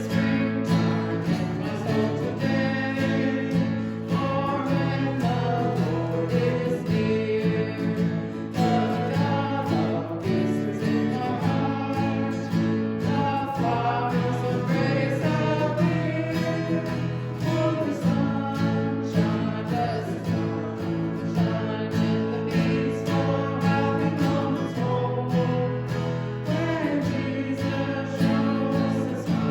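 Music: a worship song with strummed acoustic guitar and singing.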